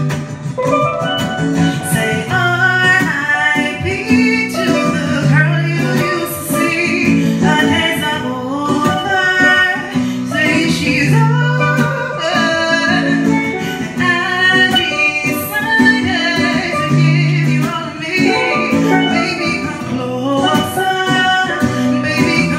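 A woman singing to her own strummed acoustic guitar, over low bass notes that shift in a repeating pattern.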